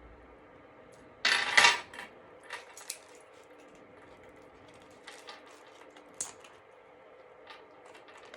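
A heavy gold-tone metal chain handbag strap being handled, its links clinking and jingling. There is one louder rattle of the chain a little over a second in, then scattered light clicks.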